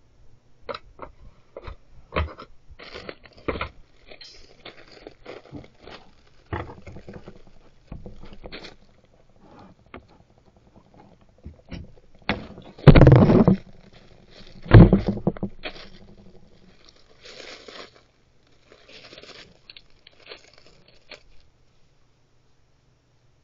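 A black bear rummaging just beside the camera: irregular scraping and crunching, with two loud bangs a couple of seconds apart about halfway through, then fainter scuffling that dies away near the end.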